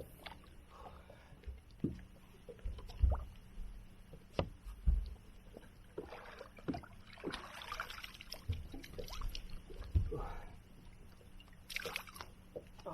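Scattered knocks, taps and clicks of gear being handled in a small fishing boat, with stretches of water noise against the hull.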